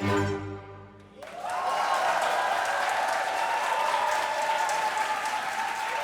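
The last chord of a piece of classical music dies away, and about a second in an audience breaks into sustained applause.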